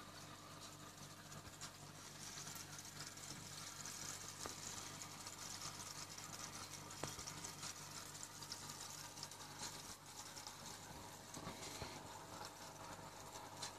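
Faint steady hum of an aquarium pump with a soft fizzing crackle of air bubbles streaming up through the tank water.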